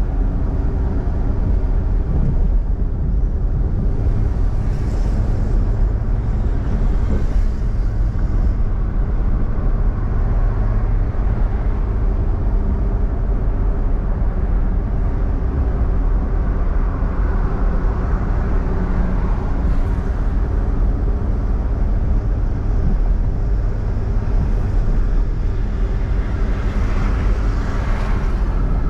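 Steady driving noise of a car on the road: a low rumble of tyres and engine hum, with no sharp events.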